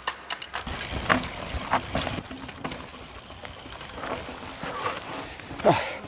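Mountain bike riding over a rough dirt trail, with tyre noise, scattered clicks and knocks from the bike rattling, and a short falling sound near the end.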